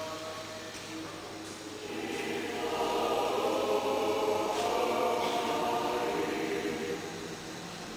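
Choir singing, the voices swelling louder about two seconds in and easing back near the end.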